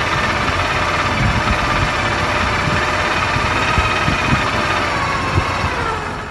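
Hydraulic power tong and rig machinery running on a drilling-rig floor: a steady mechanical whine that wavers slightly in pitch over a low rumble, with a few dull knocks.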